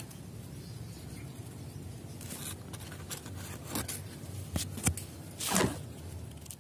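Rustling and scraping of leaves and branches in a waru tree as a hand and a hand-held camera push through the foliage, with several sharp knocks and scrapes in the second half, the loudest a little after five seconds.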